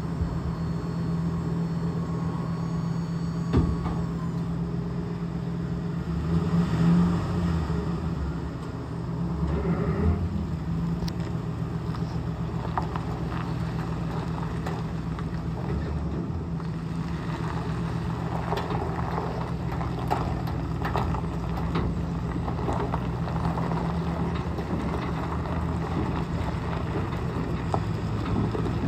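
2005 Ford F350's 5.4 L Triton gas engine running steadily, with the electric dump-bed hoist whining until it cuts off about four seconds in.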